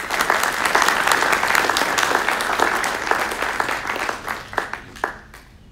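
Audience applauding: dense clapping that thins to a few last claps and stops about five seconds in.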